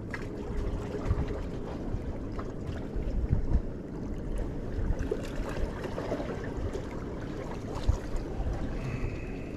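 Wind buffeting the microphone over water washing against jetty rocks, with faint ticks from a spinning reel being cranked.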